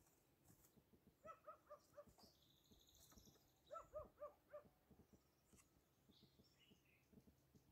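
Faint, distant dog yapping in two quick runs of about five short barks each, with a brief faint high bird twitter between the runs.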